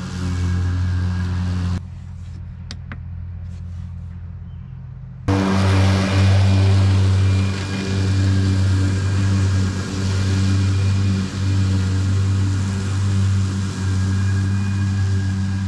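Ryobi 80V HP battery-electric riding lawn tractor mowing tall, thick grass: a steady electric motor hum with a rustling hiss of cut grass over it. About two seconds in, the sound turns muffled and quieter for a few seconds, then comes back full and stays steady.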